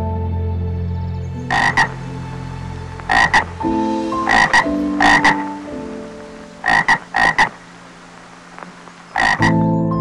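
Frogs croaking: a string of short, sharp croaks, single or in quick pairs and threes, every second or so.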